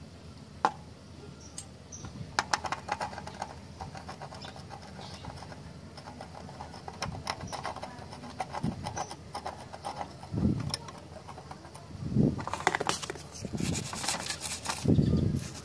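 Small scratching and clicking from work on the solder side of a circuit board: tweezer tips picking at the switch's solder joints, then a stiff wire-bristle brush scrubbing across the pads near the end. A few short low bumps from handling are mixed in.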